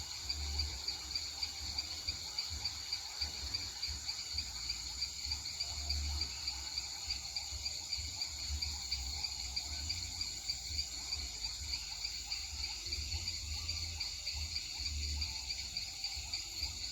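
Amazon rainforest night chorus of insects such as crickets, several high steady trills layered together and pulsing a few times a second. A low rumble comes and goes under it on the microphone.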